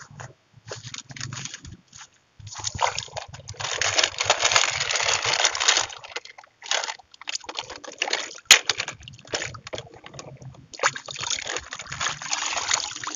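Water sloshing and splashing as a plastic basket of toy figures is dunked and swished around in a tub of water, in two longer spells about a third of the way in and near the end. A single sharp click comes just past the middle.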